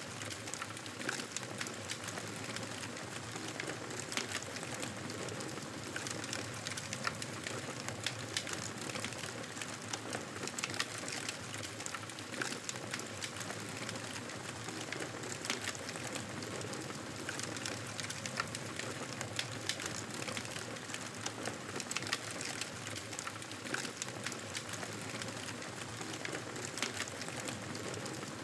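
Campfire burning, with frequent irregular crackles and pops over a steady hiss.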